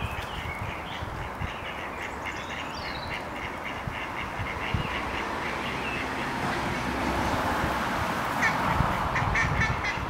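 Mallard ducks quacking, with small birds chirping throughout over a steady background rush.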